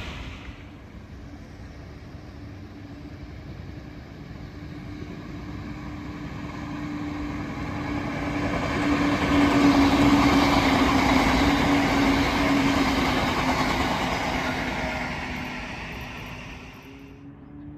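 Electric train passing: its running noise and a steady hum grow louder, are loudest about ten seconds in, then fade away before cutting off near the end.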